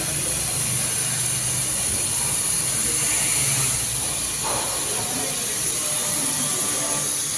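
Gas brazing torch flame hissing steadily while brazing copper pipe.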